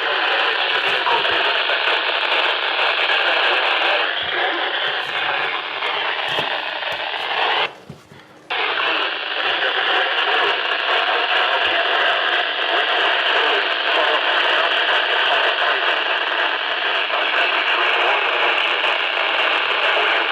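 Heavy radio static from a weak broadcast reception: a steady, band-limited hiss with faint wavering tones buried in it. It cuts out briefly about eight seconds in, then returns.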